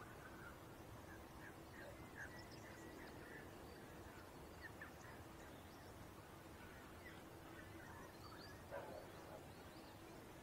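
Near silence: faint outdoor ambience with scattered faint bird chirps and a low steady hum.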